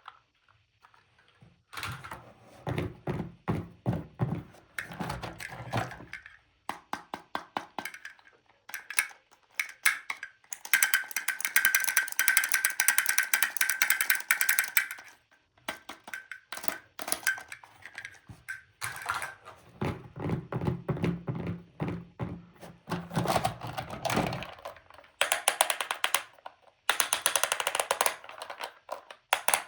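Plastic toys and their packaging being handled, making quick runs of clicks, taps and knocks. In the middle there is a few seconds of a steady pitched buzzing tone, with a shorter one near the end.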